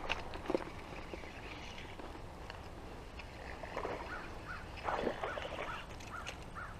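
A couple of sharp clicks near the start, then a bird calling in a run of short, repeated squawks from about halfway through.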